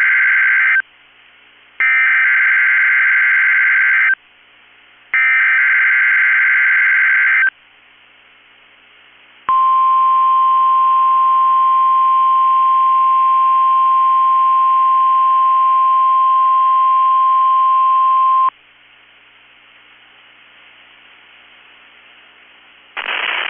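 NOAA Weather Radio test signal: three buzzy digital SAME header bursts, each about two seconds long with short gaps between them, the first already under way. About two seconds after the last burst, the steady 1050 Hz warning alarm tone comes on and holds for about nine seconds, then cuts off. An announcer's voice begins near the end.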